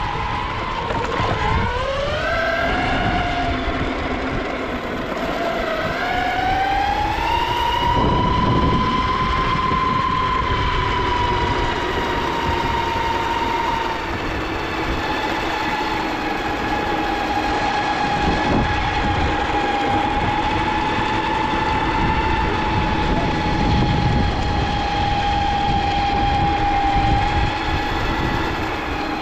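Ecomobl M24 Pro electric skateboard's motors whining under way, the pitch dipping about a second in, then climbing as the board speeds up and holding steady, over the rumble of its wheels on rough asphalt.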